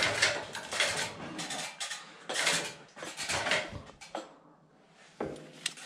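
Irregular clatter of handling: hard knocks and small metal clinks, with a short lull about four seconds in.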